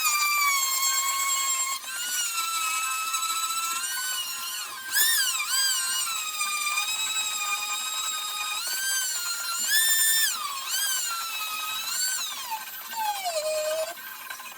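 Small high-speed power tool whining; its pitch dips and recovers again and again as it is pressed into the work. Near the end it winds down and stops.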